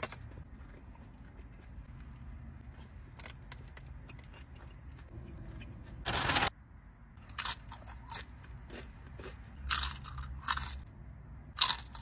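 Biting into and chewing a crunchy birria taco. A loud crunch comes about halfway through, followed by several shorter crunches as it is chewed.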